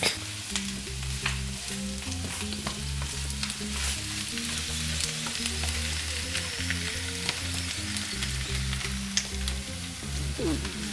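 Potatoes, onions, peppers and eggs sizzling in a frying pan: a steady hiss with small ticks, over background music with a low bass line.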